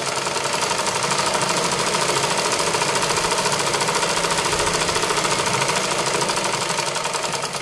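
Usha sewing machine stitching at speed through mekhela cloth: a rapid, even clatter of the needle mechanism that picks up at the start and slows near the end as the seam is finished.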